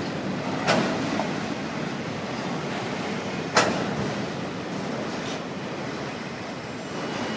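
A freight train's autorack cars rolling past at close range: steady wheel-on-rail noise, with two sharp clanks, one under a second in and one at about three and a half seconds, the second the louder.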